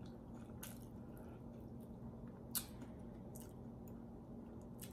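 Faint, close-miked eating sounds: soft wet chewing with a few short, sharp clicks, the loudest about two and a half seconds in, over a low steady hum.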